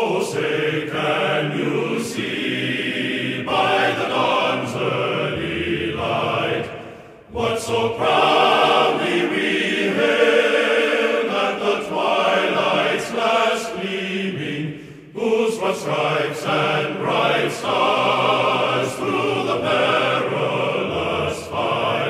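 Background music of choir-like chanting voices singing in long held phrases, with brief pauses about seven and fifteen seconds in.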